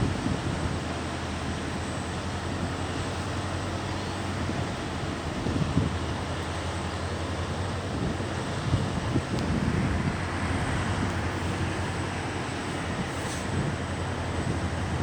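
Wind buffeting the microphone in irregular low gusts over a steady low rumble.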